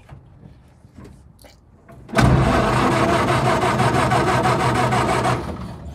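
A few faint clicks, then an old vehicle's starter motor cranks the engine for about three seconds with a fast, even pulsing and stops abruptly: the engine does not catch.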